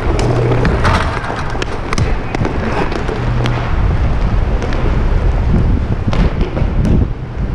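Inline hockey play on a plastic-tile rink: a steady rumble of skate wheels with many sharp clacks of sticks and puck hitting the floor and each other, close to the goalie's helmet camera.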